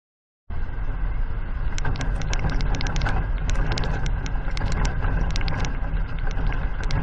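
Outdoor rooftop city camera's microphone picking up a loud, steady low rumble, with many quick, irregular clicks and rattles over it from a couple of seconds in. The sound cuts in abruptly about half a second in.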